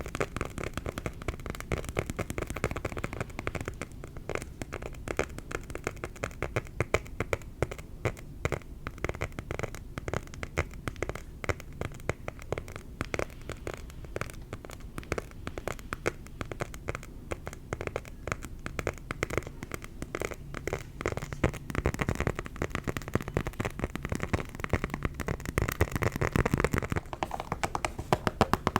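Rapid, dense tapping and scratching on a leather luggage tag. Near the end the tapping changes to a shoe.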